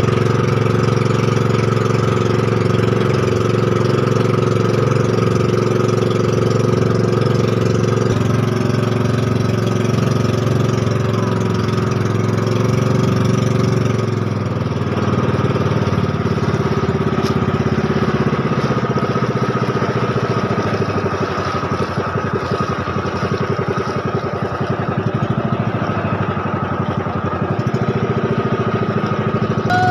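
Outrigger boat's (bangka's) engine running steadily under way over the rush of water along the hull; its tone shifts about halfway through.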